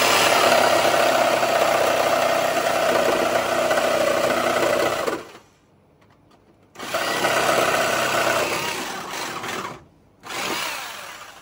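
Handheld electric saw cutting through sheet metal, run in three spells: about five seconds, then after a short pause about three seconds more, then a brief burst near the end.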